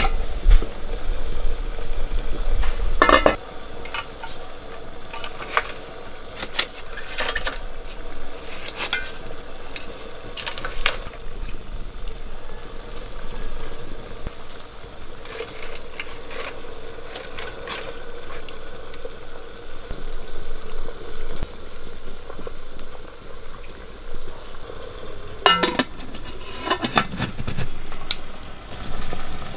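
Aluminium steamer pot over a wood fire: a steady sizzle of boiling water and crackling firewood, with scattered light clicks. Metal clanks of the steamer lid and pot come about three seconds in and again near the end.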